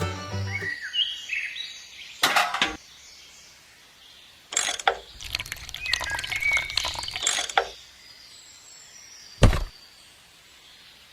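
Birds chirping outdoors, mixed with a few short noisy rustling bursts and one sharp thump about nine and a half seconds in. A music track cuts off right at the start.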